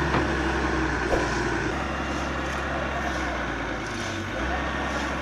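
Diesel engine of a JCB 145 excavator running steadily, with its low note shifting a little. Two short knocks come in the first second or so.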